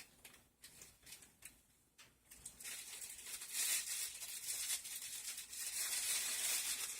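A few light clicks and handling noises, then about two seconds in a plastic bread bag starts rustling and crinkling continuously as it is opened and the bread taken out.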